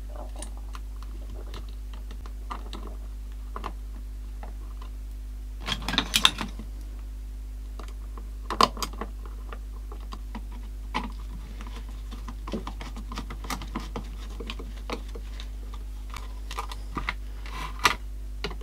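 Irregular small clicks and taps of a screwdriver and small screws against a transistor radio's plastic case and metal chassis. There is a cluster of louder clatters about six seconds in, and single sharper knocks near nine and eighteen seconds.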